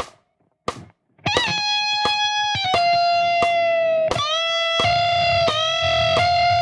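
Electric guitar lead played at half speed, over steady clicks about every 0.7 seconds. After a short rest, a note is bent up a whole step about a second in and held. From near the middle, a run of pull-offs steps the pitch down to a sustained note.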